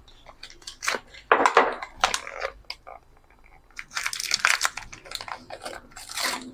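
Battery packaging being torn open by hand: irregular crinkling and tearing, in louder bursts about a second and a half in and again around four seconds.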